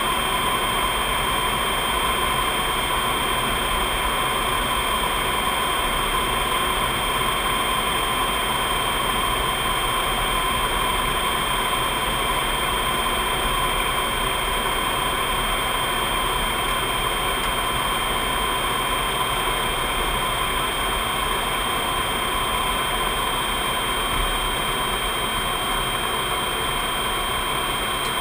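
Jet aircraft in cruise heard from inside the cockpit: a steady rush of engine and airflow noise with constant high whines.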